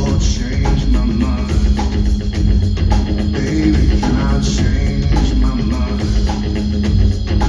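Live rock band playing an instrumental passage on bass guitar, electric guitar and drum kit.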